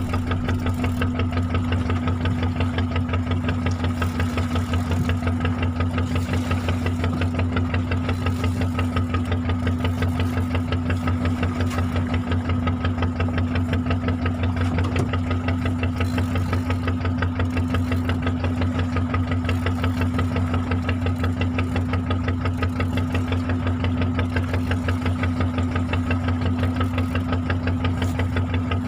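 Fishing boat's engine running steadily at a constant speed, with a fast, even throb.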